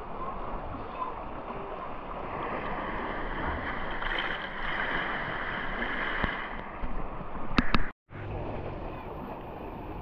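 Sea water sloshing and lapping around a GoPro camera held at the surface. Two sharp knocks come shortly before the sound cuts out for a moment, and then small waves wash against rock.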